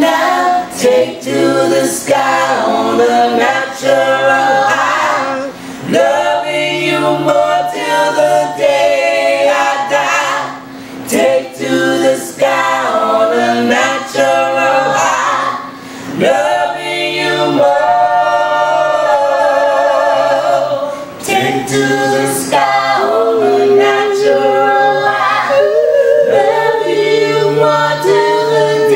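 A small group of men and women singing together in close harmony into a handheld microphone, with short pauses for breath between phrases and a wavering held note near the end.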